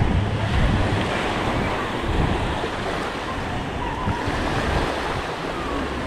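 Small waves washing up and breaking on a sandy shore, with wind buffeting the microphone.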